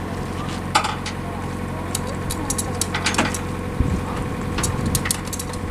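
A diesel engine running steadily, with sharp metallic clicks and knocks about a second in, around three seconds in, and several more near the end.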